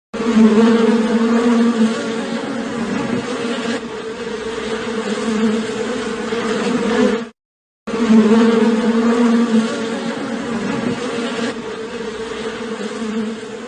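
A flying insect buzzing steadily. The sound cuts out abruptly for about half a second partway through, then resumes.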